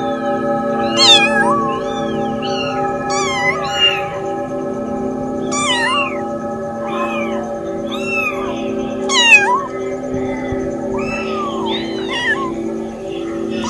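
Several very young kittens mewing over and over, short high-pitched cries that rise and fall, some overlapping, the loudest about a second in and again near the middle. Steady background music with a pulsing beat runs under them.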